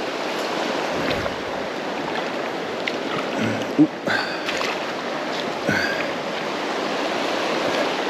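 Steady rush of a rocky river's rapids, with a brief thump a little under halfway through.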